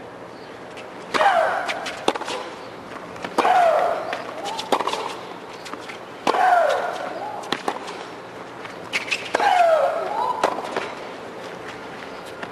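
Tennis rally: a female player serves about a second in and lets out a loud falling shriek with each of her strokes, four in all, each on the crack of her racket. Between them come fainter pops of the opponent's racket and the ball bouncing.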